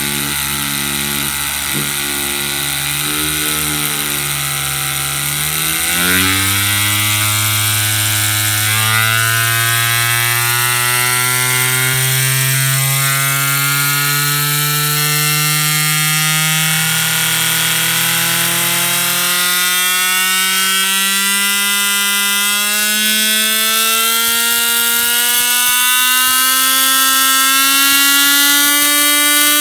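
A handheld rotary tool spinning a Lego Technic model engine's plastic crankshaft and piston at very high speed. It runs with a whine whose pitch jumps up about six seconds in, then climbs steadily as the speed keeps rising.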